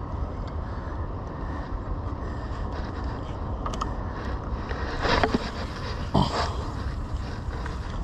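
Steady low rumble of wind on an action camera's microphone, with two short, louder rushes of noise about five and six seconds in as the spinning rod and reel are handled.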